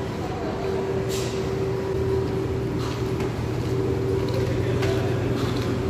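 A steady mechanical hum with a constant tone, broken by a brief hiss about a second in and a few faint ticks.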